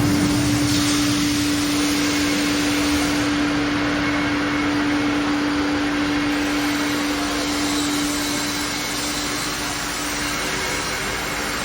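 Air-bubble fruit and vegetable washing machine running: a steady motor hum with a continuous rushing hiss of air and water, easing slightly near the end.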